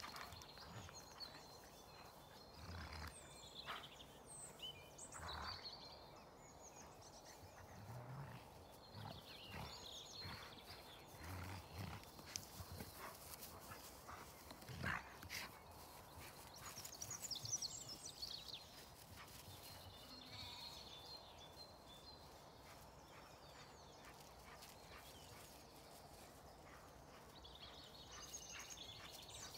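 Faint sounds of two large dogs play-fighting on grass: a few short growls and scuffling thuds, the loudest about halfway through. Birds chirp faintly in the background.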